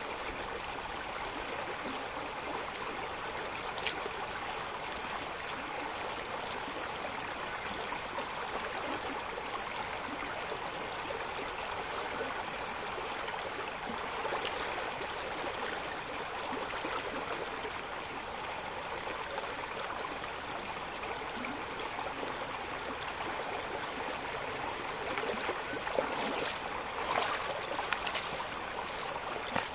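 Stream water running with a steady rush. There are a few short sharp sounds near the end.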